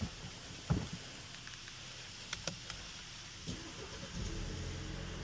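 Alfa Romeo Giulia being started from inside the cabin: a few faint clicks, then about three and a half seconds in a steady low engine hum sets in and holds at idle.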